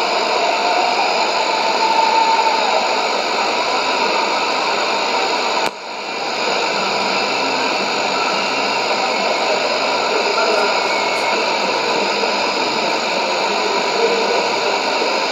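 Sony ICF-2001D shortwave receiver tuned to 6160 kHz AM, giving out heavy static and hiss with a weak broadcast signal faintly audible underneath. The noise cuts out for a moment about six seconds in, then comes back.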